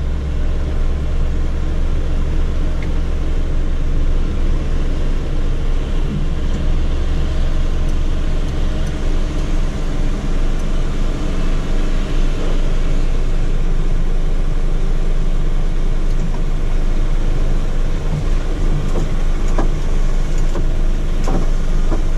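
Truck's diesel engine running steadily, a constant low drone heard from inside the cab, with a few light clicks near the end.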